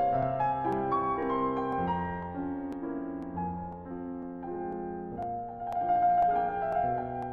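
Piano music: held notes and chords changing at a slow, even pace.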